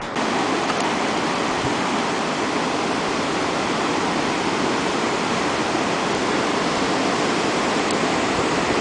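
Shallow surf washing and swirling around rocks at the water's edge, a steady rush of water.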